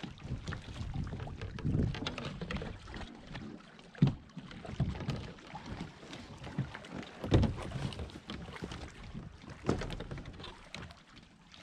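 Kayak paddling: the paddle dipping and splashing in the water, with three sharp knocks at about four, seven and ten seconds in.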